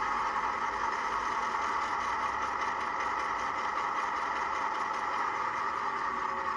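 ESU LokSound 'Hifi' EMD 8-645 diesel sound idling steadily, played from the on-board speaker of a model Irish 181 class locomotive through its DCC sound decoder.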